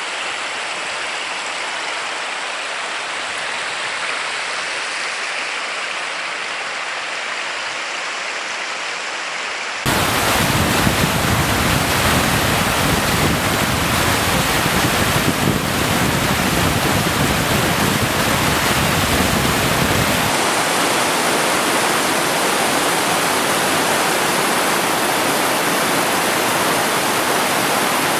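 Steady rushing of glacial meltwater and a fast mountain river. It gets louder and fuller about ten seconds in.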